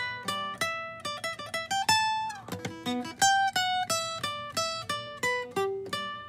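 Acoustic guitar picking a quick single-note melody, one plucked note after another at several notes a second, with a longer held note near the end.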